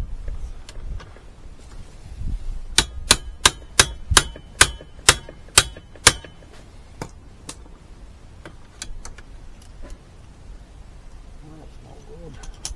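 Repeated metal-on-metal strikes while freeing a stuck seat or seatbelt-buckle fastener: about nine sharp ringing clangs, a little under three a second, then a few lighter taps and clicks.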